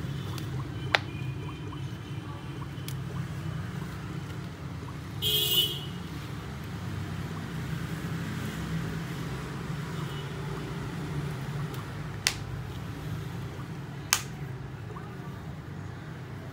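Plastic back shell of a Samsung Galaxy Tab E tablet being pressed shut by hand, its clips snapping into place with a few sharp clicks, over a steady low background hum. About five seconds in, a short, shrill beep is the loudest sound.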